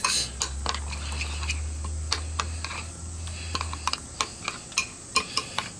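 Metal spoon stirring a thick creamy sauce in a glass bowl, making many quick uneven clicks and taps against the glass. A steady low hum sits underneath until about four seconds in.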